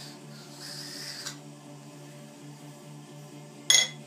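Sharpening stone rubbed in strokes along the cast-iron column way of a Schaublin SV52 milling machine, a dry hiss that stops about a second in. Near the end a single sharp, ringing clink, the loudest sound.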